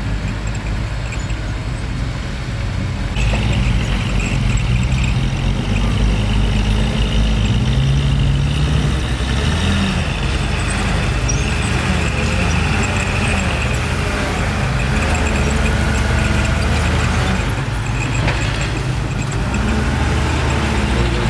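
Bulldozer's diesel engine working under load, its pitch rising and falling, with a louder, harsher note from about three seconds in.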